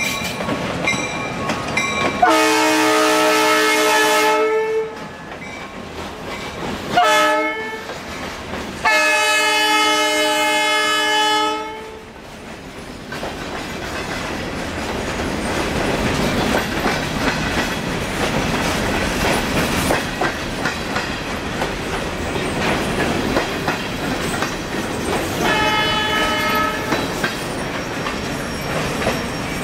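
Diesel freight locomotive's horn blowing a long blast, a short one and another long blast, the pattern sounded for a grade crossing. Then freight cars roll past with wheels clicking over the rail joints, and the horn sounds again near the end.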